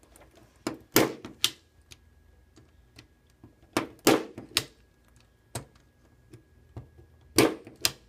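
Punch-down tool snapping Cat5e wires into the insulation-displacement slots of a keystone RJ45 jack: a run of sharp clicks, several coming in quick pairs and threes with pauses between.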